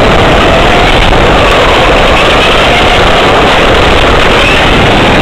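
On-road RC car's small engine running flat out right beside the microphone, loud and distorted, its pitch rising and falling as the throttle changes.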